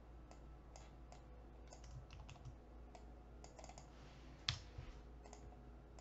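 Faint, scattered computer keyboard keystrokes and mouse clicks, with one louder click about four and a half seconds in, over a low steady hum.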